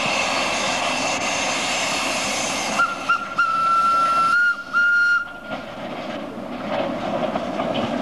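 A steady hiss, then a narrow-gauge locomotive's whistle sounding about three seconds in as a held tone broken into a few short blasts, followed by the train's running noise growing as it comes closer.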